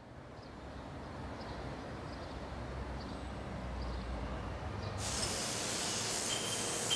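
A faint low outdoor rumble swells in, then about five seconds in it cuts to a steady high hiss of a hand-held power tool working a marble block in a carving workshop.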